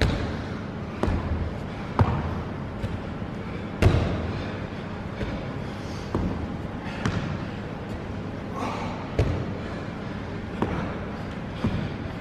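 Athletic shoes thudding on a padded plyo box and a wooden floor during repeated box step-ups, a thud about every second or two.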